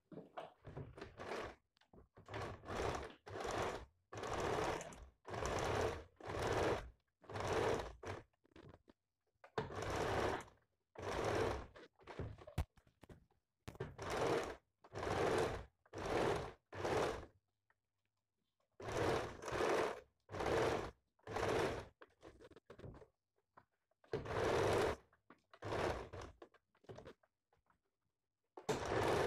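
Electric domestic sewing machine stitching a seam through fabric in short runs of under a second each, stopping and starting again over and over, with a couple of longer pauses.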